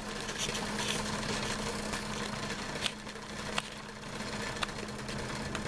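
Steady hum of a running 500 W computer power supply and its cooling fan, with a few light clicks.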